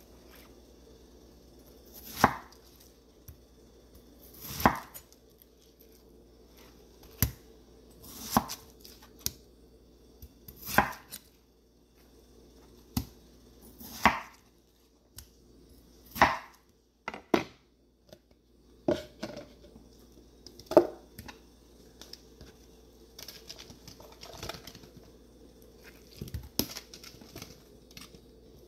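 Kitchen knife cutting through watermelon onto a wooden cutting board: a short crunch through the flesh ending in a sharp knock on the board, repeated about every two seconds. Near the end come softer scattered taps as the chunks are handled and dropped into a plastic container.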